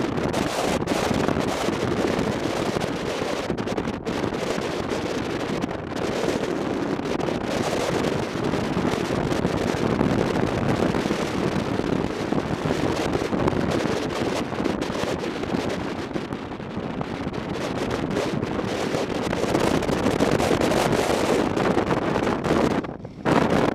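Wind buffeting the microphone of a camera on a moving motorcycle: a loud, steady rush of noise that drops away briefly for about half a second near the end.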